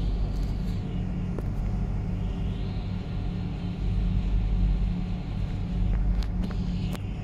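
Tram running, heard from on board: a steady low rumble and hum, with a higher hiss swelling and fading twice and a few sharp clicks near the end.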